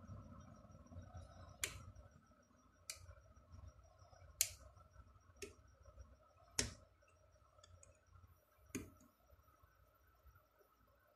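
A hand tool clicking and tapping against a car alternator's rectifier and brush holder, about six sharp clicks at uneven intervals over a faint steady hum.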